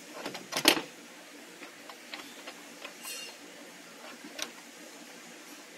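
Clicks and knocks of the metal clamp and knob fittings on a surgical arm support being adjusted by hand: a loud clatter under a second in, then scattered lighter clicks.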